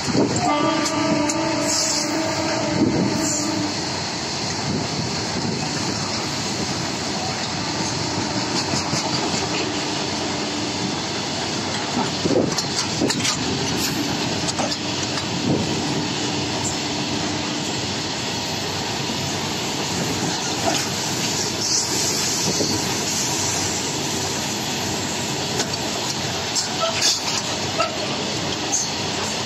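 Covered box wagons of a freight train passing at high speed: a steady rumble of steel wheels on the rails, with clickety-clack over the rail joints and occasional sharper knocks.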